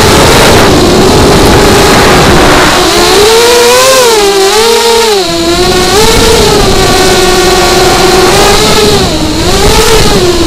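FPV racing drone's electric motors and propellers whining as heard from the onboard camera, the pitch rising and falling again and again with the throttle, over a steady rush of air noise.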